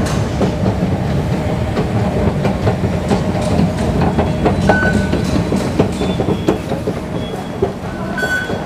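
Underground MRT station noise: a steady low rumble with scattered clacks that fades somewhat in the last couple of seconds, and short electronic beeps from the fare gates, one near the end.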